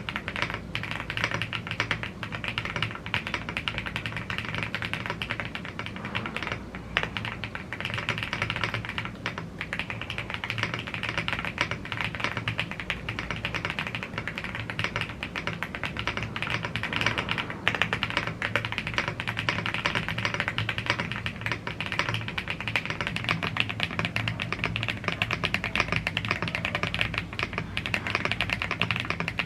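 Continuous fast typing on a YUNZII AL75 gasket-mounted CNC aluminium mechanical keyboard with Blue Grey tactile switches and double-shot PBT Cherry-profile keycaps: a dense, even stream of key clicks.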